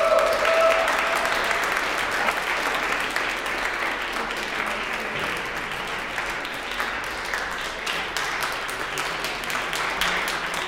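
Audience applauding steadily, with a brief held call from the audience right at the start.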